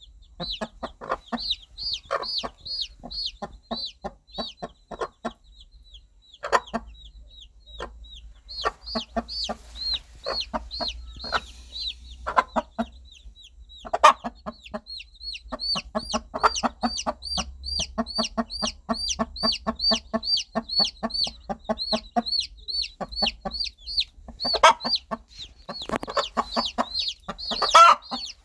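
A mother hen clucking in runs of short, low clucks while her baby chicks peep constantly: a stream of high, short peeps that fall in pitch. It is a hen calling her chicks to her. A few louder calls stand out, about 6 seconds in, midway, and near the end.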